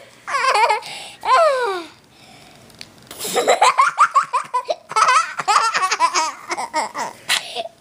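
Small child laughing hard from being tickled: two falling squeals of laughter, a short pause, then a long run of quick, pulsing belly laughs.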